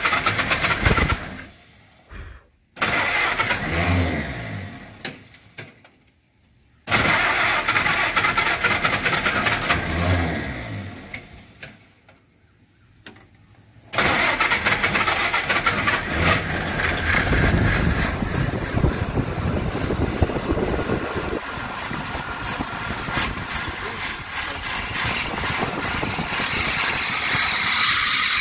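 Willys CJ2A Jeep's Go-Devil four-cylinder flathead engine being started with the choke closed. It catches briefly a few times and dies away each time, then starts about 14 seconds in and keeps running roughly, its fuel delivery not yet dialed in. A drive belt squeals near the end.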